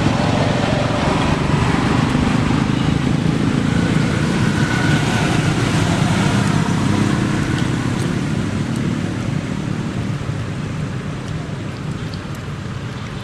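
Steady low background noise without any distinct voice or tone, easing off a little over the last few seconds.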